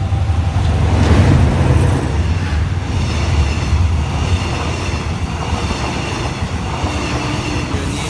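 A diesel-hauled express sleeper train passes close by on a curve. The locomotive's engine rumble is loudest a second or two in. Then the coaches roll past with steady wheel-and-rail noise and a thin, high wheel squeal from about three seconds in.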